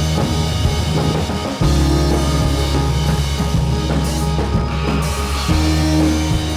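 Background hip-hop instrumental with a steady drum-kit beat and a deep bass line that changes note about a second and a half in.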